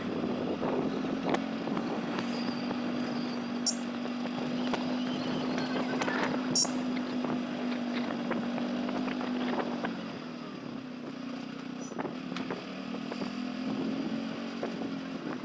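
Motorcycle engine running steadily while riding, with wind noise on the microphone; the engine note eases off about two-thirds of the way through, then picks up again.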